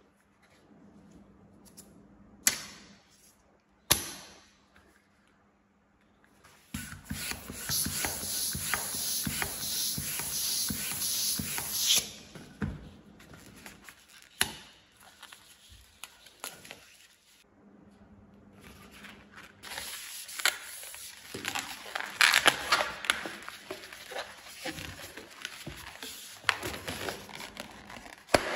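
Hands rubbing, squeezing and twisting inflated latex modelling balloons, giving long spells of dense rubbery squeaking and scraping. Two sharp clicks come about a second and a half apart, a couple of seconds in.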